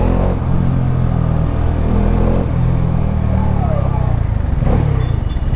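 Bajaj Dominar 400's single-cylinder engine running at low revs in a traffic jam, its pitch rising and falling gently with the throttle; near the end it settles into an even throb.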